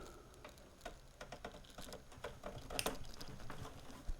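Faint, irregular small clicks and taps of a 4-pin power connector being handled and pushed onto an IDE-to-compact-flash adaptor, with a slightly louder cluster of clicks a little under three seconds in.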